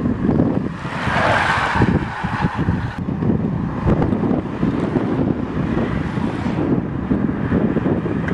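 Wind buffeting the microphone, a heavy, choppy low rumble with a brief hiss about a second in.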